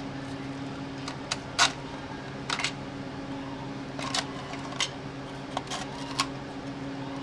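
Scattered light clicks and clinks of tools and metal exhaust parts being handled while a catalytic converter is fitted, over a steady low hum.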